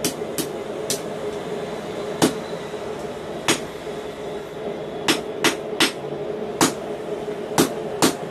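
Hand hammer striking red-hot steel on a steel anvil block while forging a knot: about eleven sharp blows at an uneven pace, some in quick runs of two or three. A steady low hum runs underneath.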